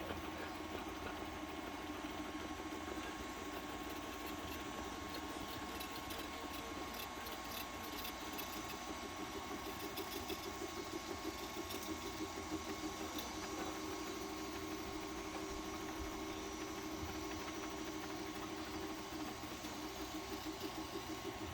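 FDM 3D printer running: a steady machine whir with a constant high tone, its lower hum changing pitch twice as the motors change moves, and a quick soft pulsing near the end.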